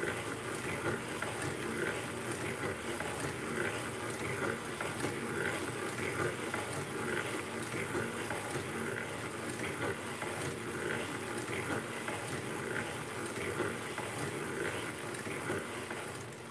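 Hand-cranked cast-iron circular sock knitting machine being turned steadily, the needles clattering through the cams as it knits row after row of plain tube, with a faint tick repeating about every two-thirds of a second.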